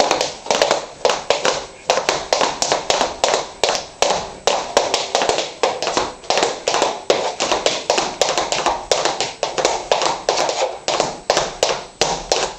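Hard-soled leather shoes tapping out a quick, even dance rhythm on a laminate floor, about four taps a second.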